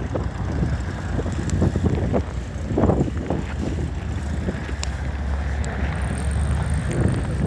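Strong wind buffeting the microphone in a blizzard: a continuous low rumble with irregular gusts surging louder.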